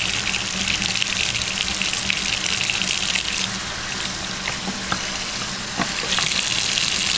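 Bathroom sink tap running steadily; the flow sound weakens for about two seconds midway, then comes back, with a few small clicks.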